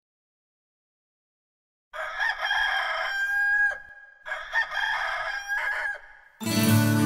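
A rooster crowing twice, starting about two seconds in, each crow under two seconds long with a high held note that falls away at the end.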